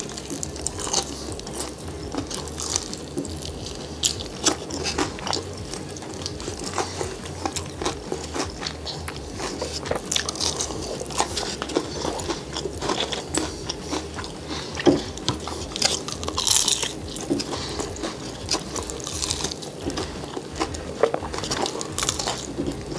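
Biting into and chewing sauce-coated, bone-in fried chicken wings close to the microphone, with repeated crisp crunches.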